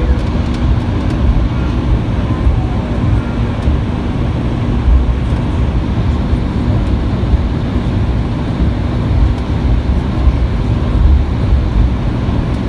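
Cabin noise of an Embraer E175 taxiing, heard from inside the cabin: its General Electric CF34-8E turbofan engines run steadily at low thrust over an uneven low rumble from the ground roll, with a faint steady hum.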